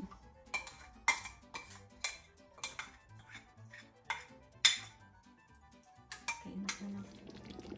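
A spoon scraping and clinking against a bowl as thick peanut sauce is scraped out of it into a pot: a string of about ten short, sharp clinks, the loudest a little past halfway.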